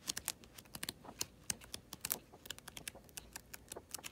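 Paper pages of a thick, filled-in journal flicked over one after another, each page giving a short, crisp flick, about four or five a second in an uneven run.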